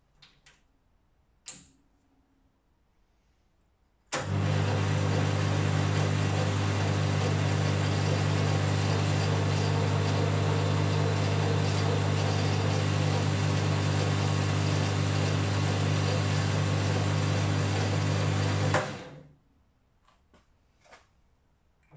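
Boxford AUD lathe's electric motor and spindle running in reverse: switched on about four seconds in, running with a steady, even hum for about fifteen seconds, then switched off and spinning down within about half a second.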